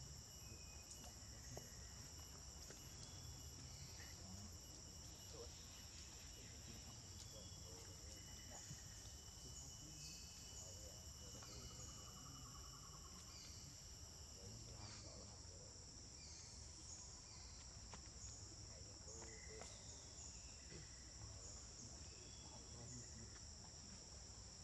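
Steady, faint insect chorus: a continuous high-pitched shrilling at two pitches, with a thinner, even higher tone that stops about halfway through.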